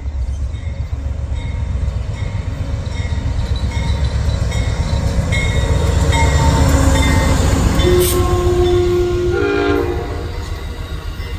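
Amtrak passenger train passing close by: the diesel locomotive's engine and wheels on the rails make a steady low rumble that builds, peaks as the locomotive goes past, then eases as the bi-level cars roll by. Near the end there is a sharp click and a short squeal of steady tones.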